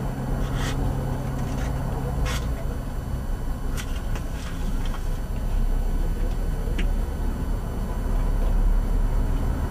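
Steady low rumble of background road traffic, swelling a little twice. Over it come a few short scratching clicks as a match is struck to light a gas stove burner.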